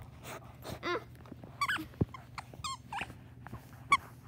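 A dog giving short, high whines and yips, about five of them spread across a few seconds, with their pitch bending down and up.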